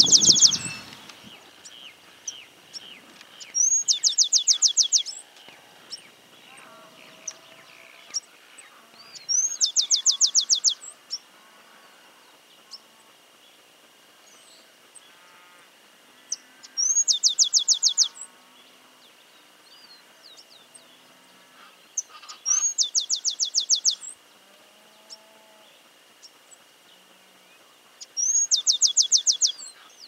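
Cachilo chaqueño (stripe-capped sparrow) singing: a short high note followed by a fast, even trill, given five times about every five to seven seconds. Fainter calls of other birds come between the songs.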